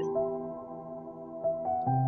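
Soft ambient background music with sustained held notes; a deeper note comes in near the end.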